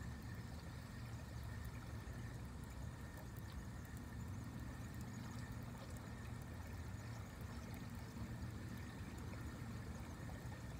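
Steady low rumble and faint hiss of river background around a kayak, with no distinct event standing out.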